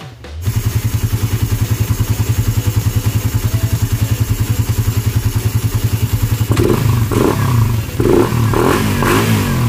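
Suzuki Raider 150 Fi's single-cylinder four-stroke engine starts about half a second in and idles steadily, then gets a few quick throttle blips in the last three seconds. It is the test run after a fresh oil, oil filter and spark plug change.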